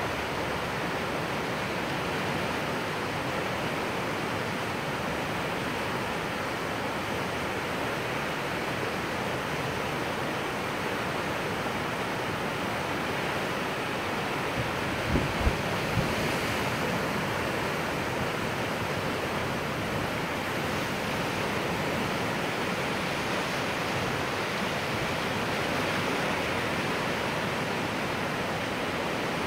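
Creek in flash flood: muddy floodwater rushing steadily past and against a cut bank. A few brief low thumps about halfway through.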